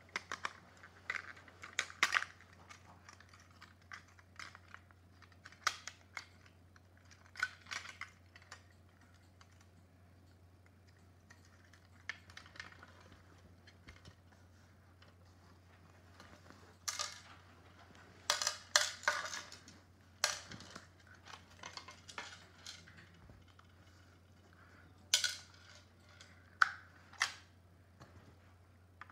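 Plastic casing parts of a cordless phone handset clicking, tapping and rattling as it is handled and taken apart by hand, in irregular bursts with a quiet stretch in the middle.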